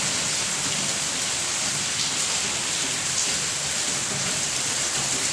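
A steady, even hiss with no breaks and no distinct events.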